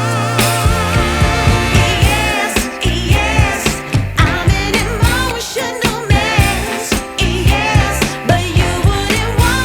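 Background music: a song with a singing voice, its held notes wavering, over a steady beat.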